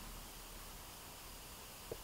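Quiet room tone: a faint steady hiss, with one faint short tick near the end.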